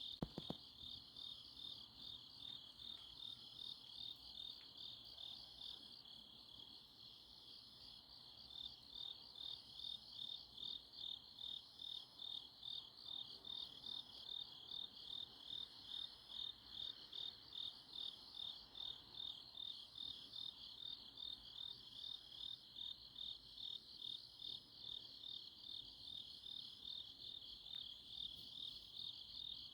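Autumn night chorus of grass insects chirping in a steady band of fast, high pulses that swell in a regular beat about twice a second. A couple of faint clicks sound at the very start.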